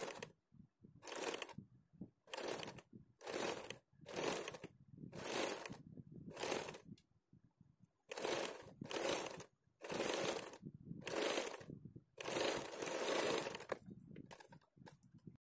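Electric sewing machine stitching a zip onto blouse fabric in short runs of about half a second, roughly one a second, with a brief pause partway through and a longer run near the end.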